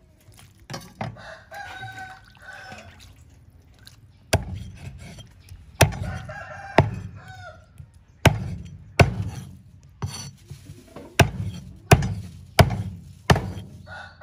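Cleaver chopping raw chicken on a round wooden chopping block: about ten sharp chops, roughly one every 0.7 seconds, starting a few seconds in. Chickens call in the background, once before the chopping and again during it.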